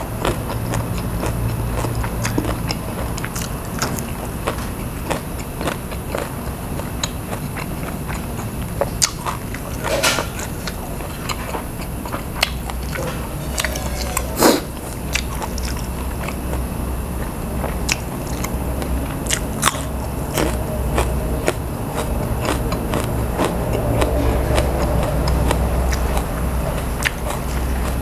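A person chewing and biting food close to the microphone, with scattered crunches and clicks throughout, over a steady low background hum.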